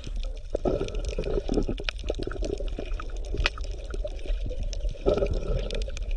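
Water bubbling and gurgling irregularly, with a steady low hum underneath.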